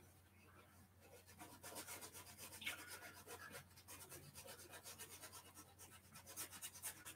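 Faint scratching of a thin paintbrush laying acrylic paint onto canvas in a quick run of short strokes, beginning about a second and a half in.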